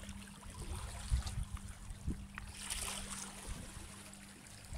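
Small sea waves lapping and washing against shoreline rocks, with a stronger wash about three seconds in, over a low rumble.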